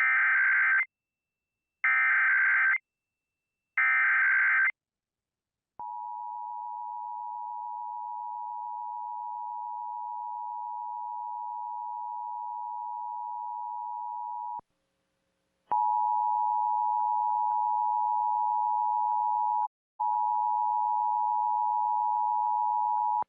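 Emergency Alert System broadcast: three short screeching data bursts of the SAME header, then the steady two-tone attention signal. The tone cuts off after about nine seconds and, after a second's silence, starts again louder with a brief break, leading into a statewide Required Monthly Test message.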